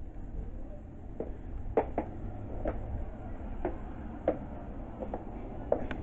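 High-heeled shoes clicking on a hard floor at a walking pace, about one or two steps a second, over a steady low rumble of room noise.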